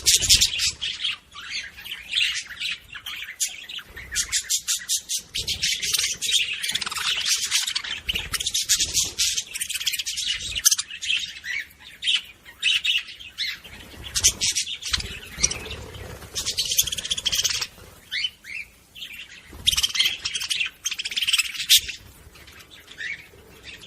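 Budgerigars chattering and warbling: a dense stream of fast chirps and trills, with brief lulls now and then.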